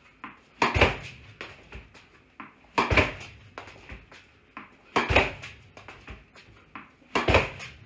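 Tennis ball struck with a racket and thudding into a homemade PVC-frame rebounder, a sharp hit about every two seconds, four times, with lighter taps of the ball between strokes. The hits ring in a small concrete basement.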